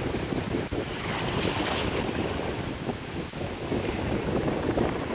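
Strong sea wind buffeting the microphone with a steady rumble, over the wash of surf.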